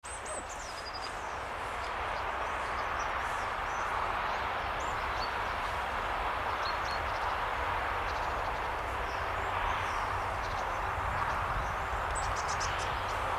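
Steady rumble and hiss of a train approaching from far off, growing a little louder over the first few seconds, with a few short, high bird chirps near the start and again near the end.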